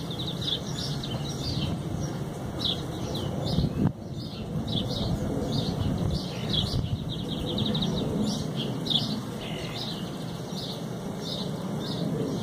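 Birds chirping in short repeated calls over a steady low rumble, with one brief knock about four seconds in.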